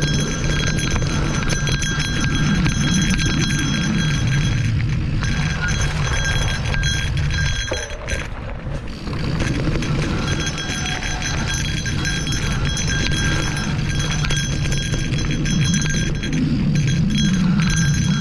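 Wind rushing over the microphone along with a continuous rattling and clinking from fast travel over a dirt forest trail. It eases briefly about eight seconds in.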